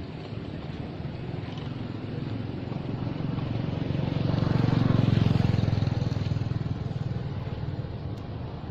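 Engine of a passing motor vehicle, growing louder to a peak about five seconds in and then fading away.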